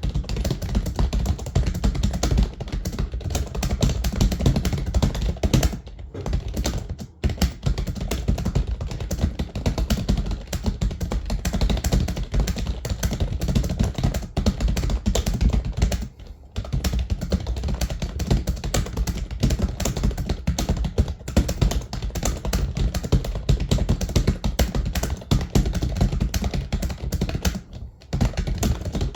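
Fast, continuous typing on a computer keyboard: a dense run of rapid key clicks, with brief pauses about seven and sixteen seconds in.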